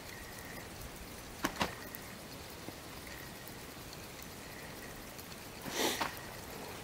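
Water lapping and dripping at a small boat on a river. Two sharp clicks come about a second and a half in, and a short noisy rush, the loudest sound, comes about six seconds in.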